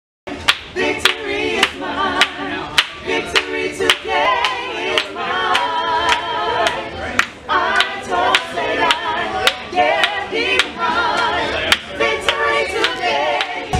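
A small group of voices singing a gospel song together in harmony, unaccompanied, with steady hand claps on the beat a little under two a second.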